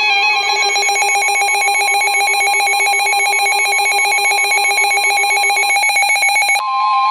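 Emergency Alert System digital header: harsh, rapidly chirping electronic data tones. About six and a half seconds in they give way to a single steady alert tone, the attention signal that precedes a weather warning.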